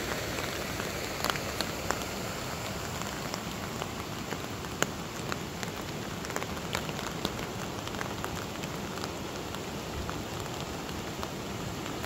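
Steady rain falling on grass and leaves, a constant hiss with many separate drops ticking irregularly through it.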